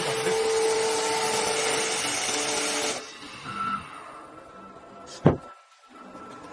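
CNC wood lathe running, its cutter turning a wooden blank with a steady hissing noise over a hum. About three seconds in the sound cuts off suddenly to a quieter machine hum with a faint high whine, and a single sharp knock comes about five seconds in.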